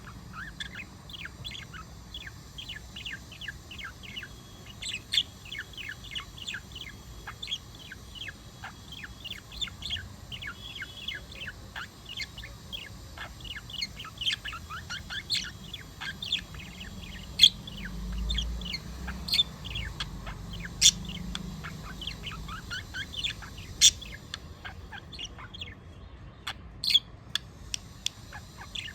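Budgerigar chatter: a continuous stream of rapid short chirps and warbles, with a few louder, sharper calls standing out in the second half.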